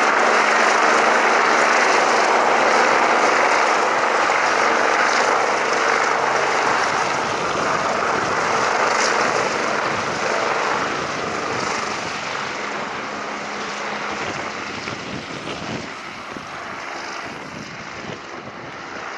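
MBB/Kawasaki BK 117 twin-turbine police helicopter hovering low, its engines and rotor running steadily, then moving away so that the sound slowly fades.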